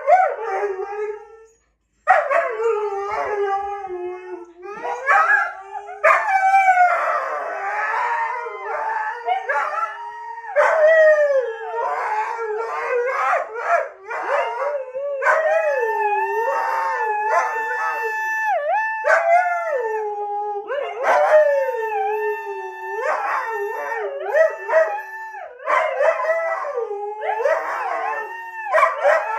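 Three huskies howling together: several overlapping howls that glide up and down in pitch, starting after a short silence about two seconds in.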